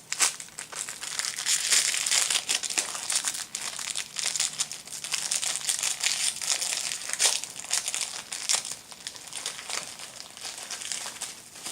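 Crinkly packaging handled by hand: the wrappers of Magic: The Gathering booster packs and wrapped land cards rustling and crackling continuously with many small sharp ticks.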